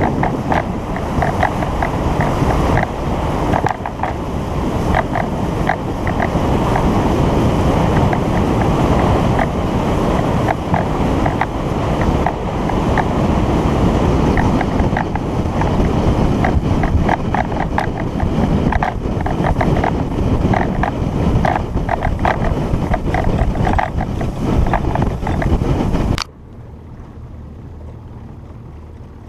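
Fishing boat running across the lake: loud wind rush on the microphone, with water repeatedly slapping the hull. The noise cuts off suddenly near the end, leaving a much quieter low hum.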